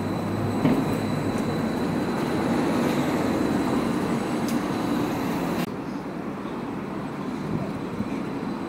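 Trolleybus passing close by, its electric drive and tyres giving a steady rumble with a thin high whine over it. A little over halfway through, the sound suddenly turns quieter and duller as the street noise takes over.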